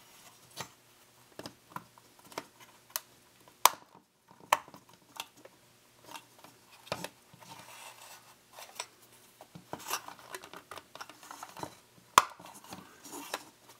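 Small plastic kit parts handled and fitted: scattered light clicks, taps and scraping as a plastic door guide is worked onto an HO scale boxcar body over its sliding door, with a few sharper snaps, the loudest about a third of the way in and near the end.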